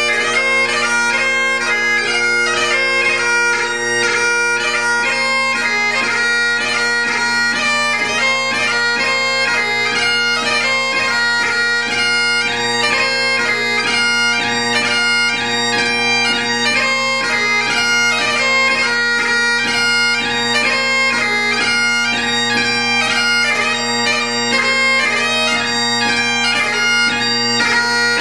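Great Highland bagpipe played solo: steady drones under a fast, ornamented chanter melody, the notes changing many times a second without a break.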